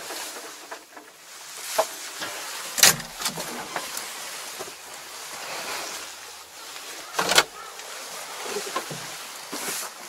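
Clicks, rattles and clunks from a tractor cab with the engine off, as the cab door is handled and swung open; two loud, sharp clunks stand out, about three seconds in and about seven seconds in.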